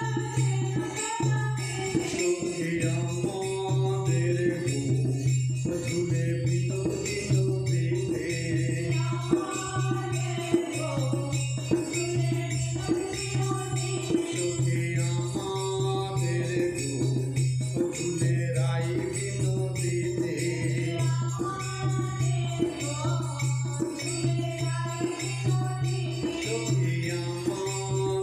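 Devotional music: a voice singing a hymn over a pulsing low note, with jingling percussion.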